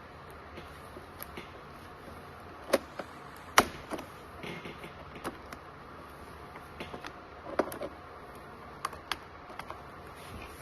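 Irregular clicks and light knocks of small tools and plastic panel parts being handled while an ultrasound machine's control panel is taken apart, the sharpest knock about three and a half seconds in.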